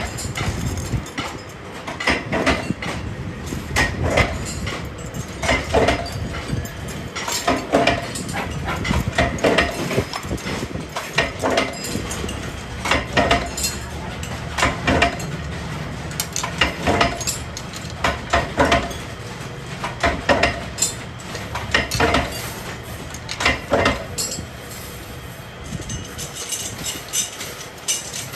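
Stainless steel cage parts clinking and knocking against each other and the tools as they are worked, in irregular strikes one or two a second, over a steady low hum.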